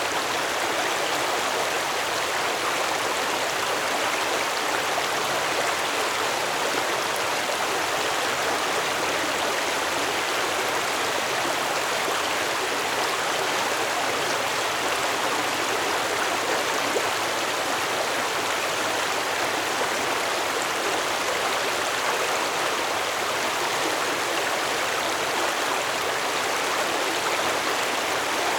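Stream water flowing steadily over rocks, a continuous even rush and babble.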